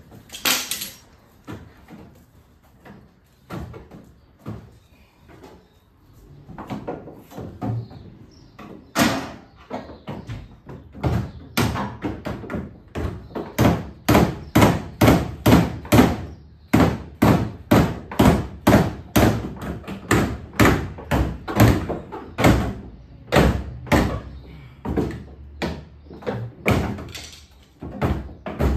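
Repeated hammer blows on a car's rear wheel-arch panel, beating the guard back into shape. The blows are sparse at first, then come steadily at about two a second from about twelve seconds in.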